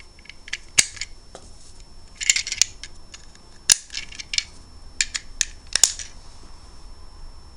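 Plastic Lego pieces clicking and clattering as they are handled and pressed together: a string of sharp single clicks and a few short rattles.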